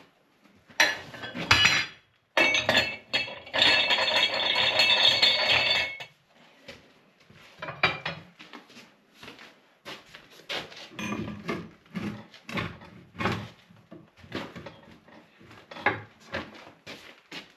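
Metal clanking and scraping from working a tire off its steel rim on a manual tire changer: a run of sharp knocks and clanks, with a longer stretch of steady metal scraping a few seconds in.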